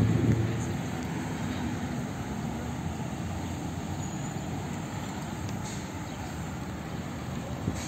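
Road traffic: a passing vehicle's low engine hum fades away over the first couple of seconds, leaving steady traffic noise, with a short click near the end.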